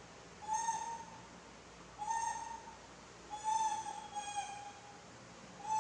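Young macaques making pitched coo calls, about four in a row, each under a second, the last one longer and stepping slightly lower.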